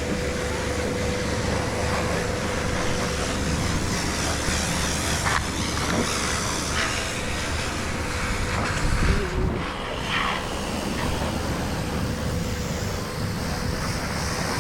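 A motor vehicle running steadily with road and wind noise, and a brief low surge about nine seconds in.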